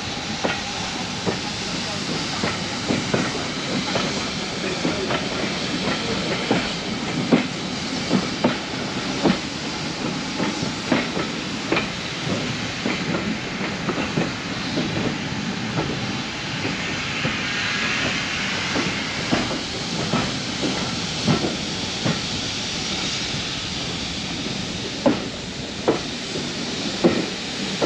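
Heritage steam train running: a steady rumble and hiss with irregular knocks and clanks, a few of them louder, and a stretch of stronger hiss past the middle.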